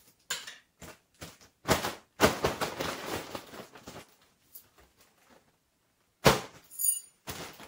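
Mylar foil balloon crinkling and rustling in uneven bursts as it is handled, with a brief high squeak near the end.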